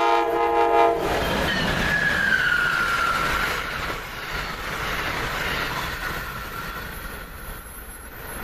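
Amtrak locomotive's five-chime K5LA air horn sounding a steady chord that cuts off about a second in, then the train running past with a high whine falling in pitch and wheel noise fading away.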